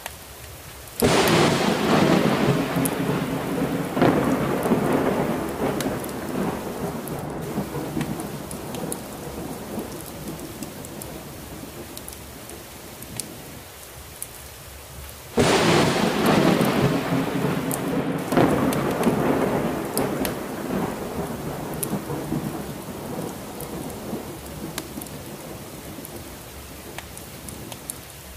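Thunderstorm with steady heavy rain. Thunder breaks suddenly about a second in, rumbles and slowly dies away, then breaks again about halfway through and fades the same way.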